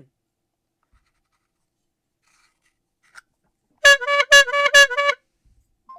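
Squeeze-bulb bike horn honked about six times in quick succession, each honk a short nasal note on the same pitch.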